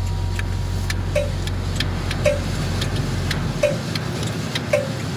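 Vehicle turn-signal indicator ticking evenly inside a van, about two clicks a second, with a short tone on every other click. Under it runs the van's low rumble, which drops away about two-thirds of the way through.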